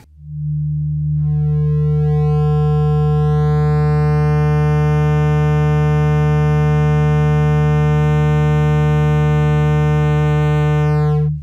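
Mini subwoofer in a 3D-printed half-horn enclosure playing a steady 150 Hz test tone at about 145 dB. It swells in the first second as the amplifier is turned up, and a rising stack of overtones comes in over the next few seconds as it is pushed toward its limit. It cuts off suddenly near the end.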